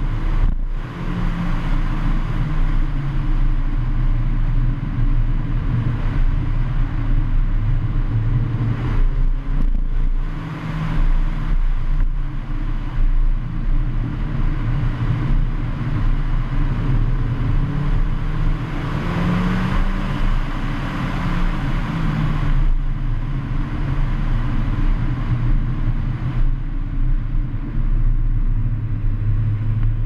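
Heavy wind noise over the microphone of a fast-moving car, with the Mercedes-AMG A45's turbocharged four-cylinder engine heard faintly underneath, its note rising and falling with the throttle, and rumble from a very rough road surface.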